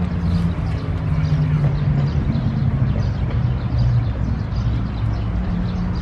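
An engine running with a low, steady rumble whose pitch drifts slowly.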